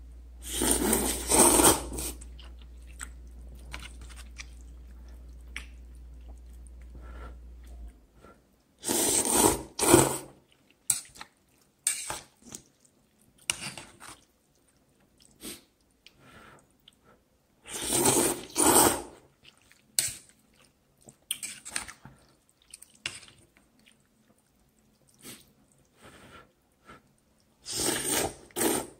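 A man slurping Korean instant noodles into his mouth: four long, loud slurps about nine seconds apart. Smaller chewing sounds fall between them.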